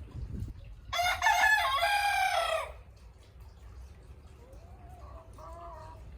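A rooster crowing once, loud, for just under two seconds, its pitch dropping at the end; a fainter call follows near the end.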